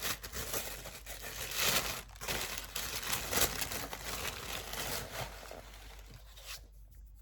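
Wrapping around a packaged herb container being unwrapped by hand, crinkling and tearing for about six seconds before it quiets down near the end.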